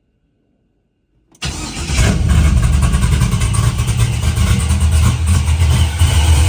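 The Procharger-supercharged LS V8 of a 1971 Chevelle, on its first start with the new supercharger set-up and a base tune, cuts in suddenly about a second and a half in and keeps going loudly and steadily.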